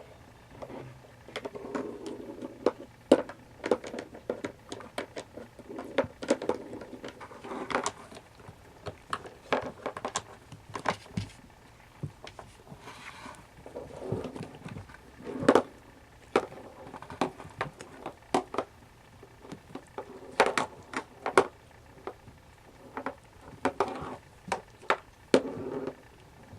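Kittens playing: a steady scatter of irregular light thumps, taps and clicks, with now and then a louder knock.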